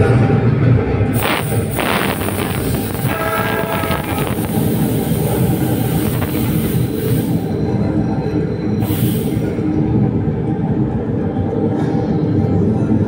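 Soundtrack of a first-person roller-coaster ride film played loud through cinema speakers: a steady rumble and clatter of coaster cars running on the rails, with some wheel squeal. A few short hisses rise above it, about a second in and again near nine seconds.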